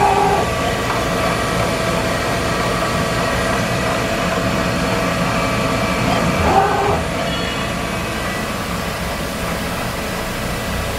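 CNC bed mill running steadily with its spindle turning at about 1300 RPM, a continuous mechanical hum with steady tones. A short pitched sound rises over it about halfway through.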